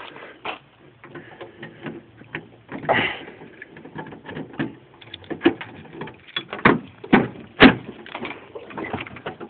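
A car door being opened: a run of latch clicks and knocks, the loudest clustered between about five and eight seconds in.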